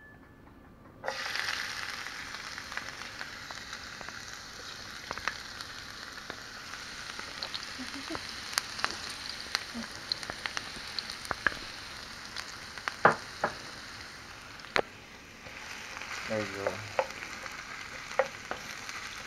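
Minced ginger and garlic sizzling in hot oil in a frying pan, starting suddenly about a second in and running steadily, with scattered sharp clicks and taps as a wooden spoon stirs them.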